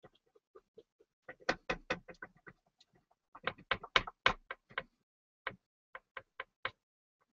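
Wrapped fingertip rubbing and polishing the inside of a glazed ceramic bowl, giving irregular runs of short scuffs and knocks against the glaze. The runs are loudest about a second and a half and four seconds in, with a few single clicks near the end.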